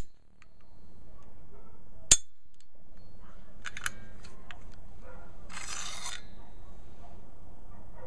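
Metal Denix Beretta 92 replica pistol being worked by hand. There is one sharp metallic click about two seconds in, then a few light clicks, then a short sliding scrape near the middle as the magazine is drawn out of the grip.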